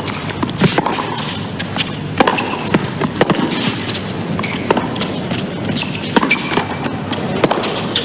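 Tennis rally: racquets striking the ball back and forth in sharp knocks every second or so, over a low steady crowd hush.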